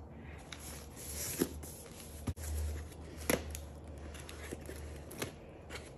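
A taped cardboard package being handled and its packing tape slit open along the seam: soft scraping and rustling, with a few sharp clicks and taps.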